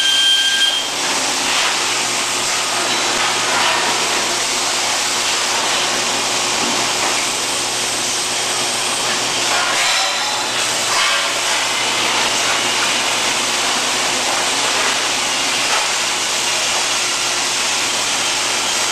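Steady, loud hissing noise from a robotic welding production line, with a high steady two-note whine that cuts off about a second in.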